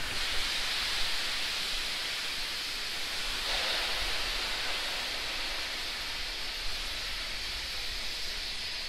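Steady hiss from the pad of a Falcon 9 rocket, whose chilled liquid oxygen is venting as white vapour during final propellant loading, with a faint low rumble beneath.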